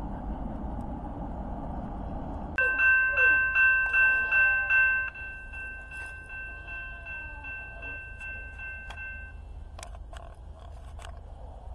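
Railroad crossing bell ringing, about three strikes a second, loud at first, then dropping suddenly and ringing on faintly for a few seconds, with a few clicks near the end.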